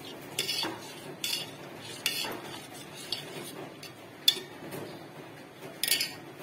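Steel ladle stirring rice and coconut milk in a steel pot, clinking and scraping against the pot's sides several times, with the sharpest clink about four seconds in.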